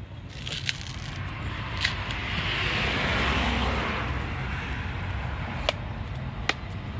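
A large knife cutting into the fibrous husk of palmyra (sugar) palm fruit, with a few sharp separate strikes. Under the strikes there is a low rumble and a hiss that swells in the middle and then fades.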